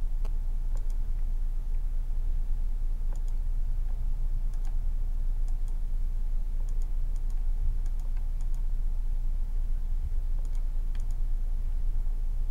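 Computer mouse clicking now and then, single clicks and quick pairs, as the zoom tool is clicked. A steady low hum runs underneath.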